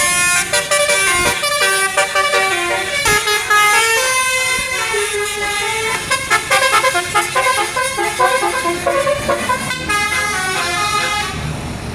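Bus telolet basuri musical horn playing a fast melody of short, changing notes, stopping near the end and leaving the low rumble of the bus and road.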